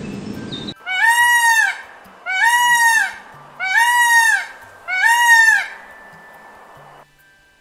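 Male Indian peafowl (peacock) calling four times in a row: loud calls, each rising then falling in pitch, about a second and a quarter apart.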